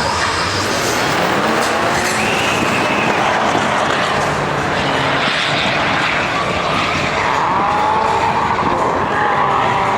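Car engine running hard with tyres squealing and skidding on the track surface, the squeal strongest in the last few seconds.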